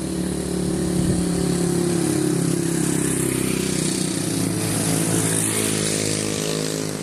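Motorcycles passing by on a paved road, their small engines running. The sound swells over the first second or so and eases off near the end.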